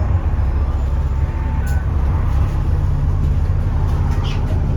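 Alexander Dennis Enviro400 double-decker bus engine running steadily under way, a low continuous rumble.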